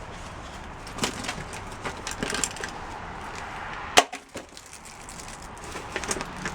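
Small objects being picked up and moved about in a box of odds and ends: light knocks, rattles and rustling, with one sharp click about four seconds in.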